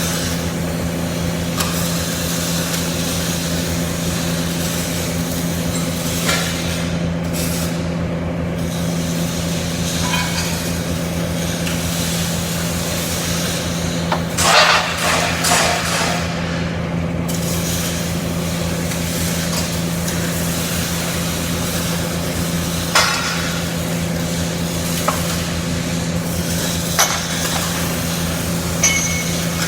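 CO2 (gas-shielded wire) welding arc frying and crackling steadily over a steady low hum, with a louder spell of crackling about halfway through and a few sharp pops near the end.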